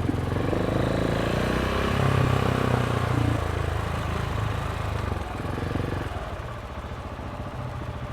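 KTM 690 SMC single-cylinder engine running through an Akrapovic exhaust under way, pulling up in revs over the first few seconds, then backing off and running quieter from about six seconds in.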